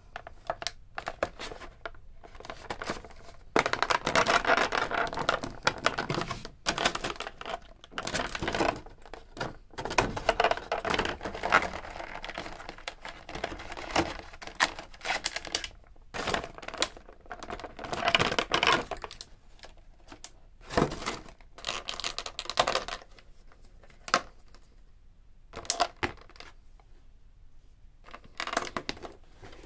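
Stiff clear plastic blister tray crinkling, crackling and clicking as it is flexed and handled while an action figure is worked free of it. The crackling is densest in the first half, then thins to scattered clicks and rustles.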